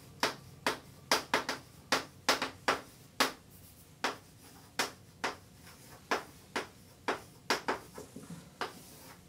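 Chalk writing on a blackboard: a string of short, sharp taps and scratches, irregular, about two a second, as letters are stroked out.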